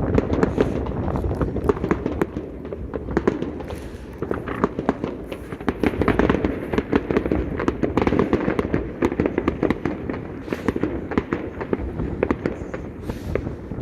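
Fireworks going off in quick succession, many overlapping bangs and crackles with no break.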